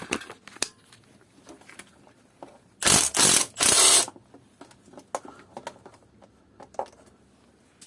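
Ratchet wrench with a 10 mm socket clicking as it works a manifold nut. There are scattered single clicks, then three loud runs of rapid ratcheting about three seconds in.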